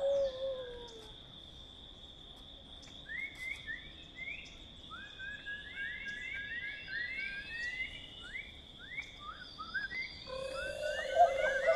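Nature sounds: many quick rising and falling bird chirps over a steady high insect drone, with a lower pulsing frog-like trill joining near the end.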